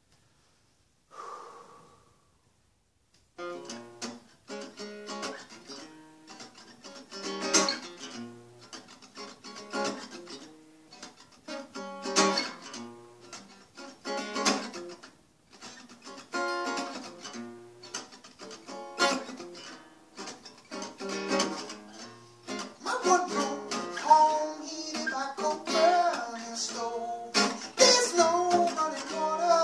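Solo acoustic guitar starting about three seconds in, playing chords over a low note that repeats about every two seconds. The playing grows fuller and louder over the last several seconds.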